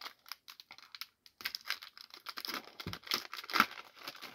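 Foil trading-card pack wrapper crinkling and being torn open by hand, a rapid crackle that grows busier about a second and a half in, with the sharpest rip near the end.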